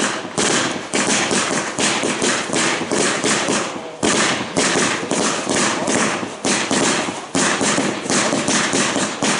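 Mascleta daytime fireworks: a dense, continuous barrage of firecracker bangs, several per second, with a brief dip just before four seconds in.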